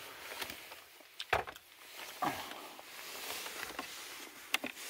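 Scattered light clicks and knocks of hands handling the car's plastic centre-console trim: one sharp click a little over a second in, another about two seconds in, and a quick cluster of small clicks near the end.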